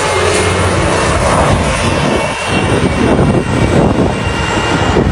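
Combine harvester's diesel engine running loud and steady at full throttle under load, as the machine, stuck in a pit, tries to drive out.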